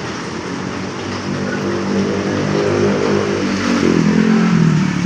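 A motor vehicle passing close by: its engine grows louder, then drops in pitch as it goes past near the end.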